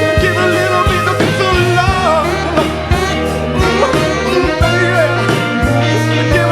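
Background music: a rock song with a steady drum beat, bass and guitar, and a melodic line, likely a vocal or lead instrument, bending in pitch.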